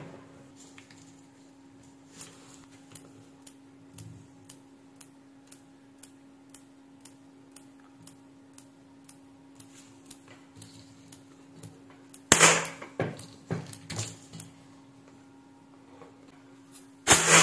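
A 12 V 10 A switch-mode power supply ticking about twice a second over a faint steady hum. This is the tick-tick symptom of a supply repeatedly trying to start, with its feedback zener diode removed and its feedback network not working properly. About twelve seconds in, loud clattering knocks break in.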